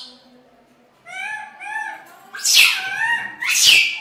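Monkeys calling: a couple of short rising-and-falling calls about a second in, then two loud harsh screeches, one about halfway through and one near the end.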